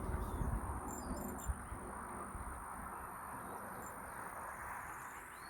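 Outdoor ambience: a steady high insect trill with a few short bird chirps, over low rumbling and a couple of knocks in the first second and a half.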